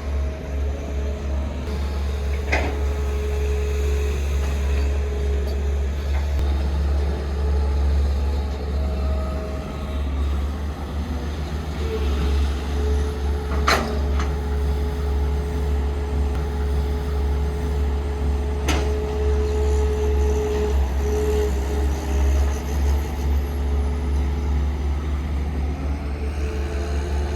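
Heavy diesel equipment engine running steadily with a deep, constant drone. Three brief sharp clicks stand out: one early, one about halfway through and one a few seconds later.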